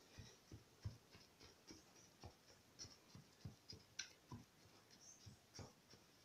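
Faint, irregular soft ticks, two or three a second: a thin wooden stick poking holes into a baked sponge cake in a metal tin.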